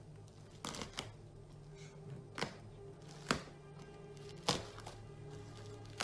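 Several sharp clicks and crackles of bubble wrap and foam packing being handled and cut open, over faint background music.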